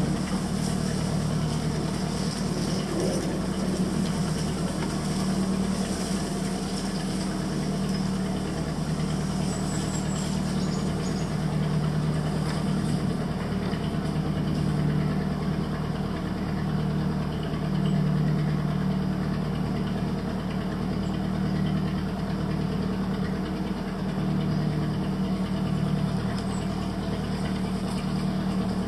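Small boat's engine running steadily, a low, even hum that does not change.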